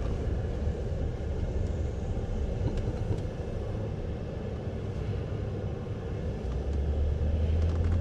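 Car cabin noise while driving: a steady low engine and road rumble, a little softer in the middle.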